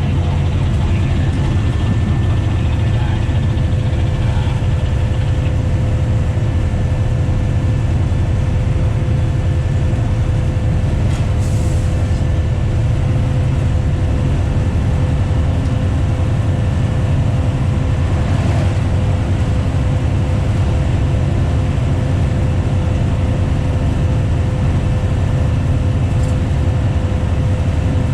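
Diesel train under way, heard from the front of the train: a steady heavy rumble of engine and wheels on the rails, with a steady hum over it.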